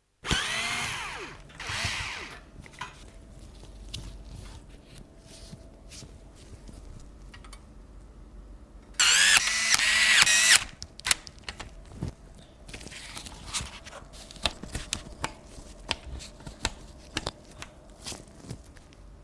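Small electric screwdriver driving screws during PC assembly, its motor whining in three short runs with the pitch sliding as it speeds up and slows, the longest and loudest about nine seconds in. Light clicks and taps of parts being handled fill the gaps.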